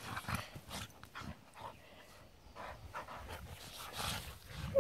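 Two dogs play-wrestling, panting and making short breathy snuffling sounds as they mouth each other, with one brief louder sound just before the end.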